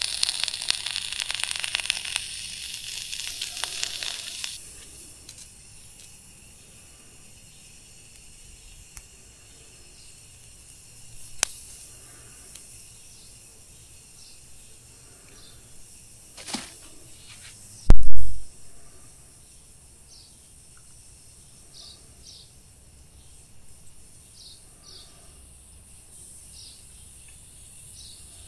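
A carbon rod arcing against lead in a battery-terminal mould, powered by the 12V car battery itself, crackles and sizzles loudly for about four seconds while it melts the lead for a new terminal post, then stops. After that only faint repeated high chirps are heard, broken by a loud thump a little past the middle.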